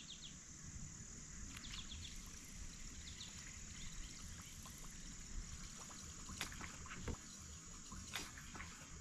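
Quiet creek ambience: a steady high insect drone over a low rumble of water and air, with a few faint quick ticks and sharp clicks.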